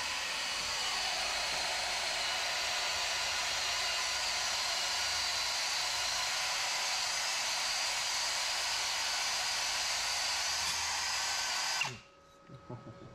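Steady, continuous power-tool noise from metal fabrication on steel engine mounts, cutting off abruptly about twelve seconds in.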